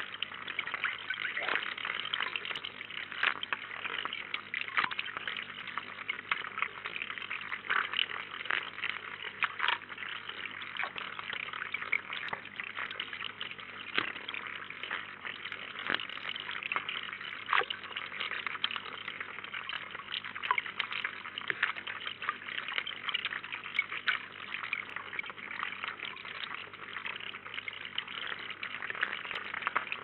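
Male common blackbird bathing in a shallow garden pond: irregular small splashes over a steady trickle of running water.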